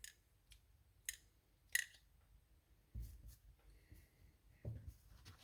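Faint, scattered clicks, three in the first two seconds, then two soft knocks, as small parts and tools are handled on a workbench.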